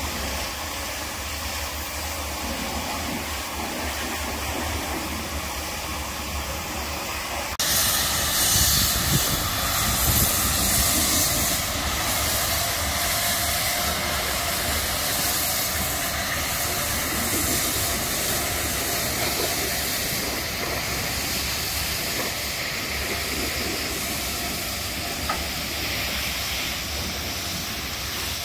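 Lancashire & Yorkshire Railway No. 957, a 0-6-0 steam locomotive, hissing steam. About 8 seconds in the hiss turns suddenly much louder as the engine stands in a thick cloud of its own escaping steam, then eases slightly and runs on steadily.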